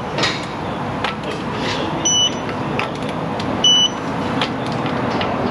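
Two short, high electronic beeps about a second and a half apart, over steady background noise with a few light clicks.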